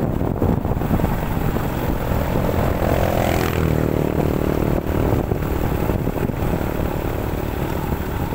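Motorcycle engine running at road speed with wind rushing over the microphone; the engine's hum comes through more clearly in the middle.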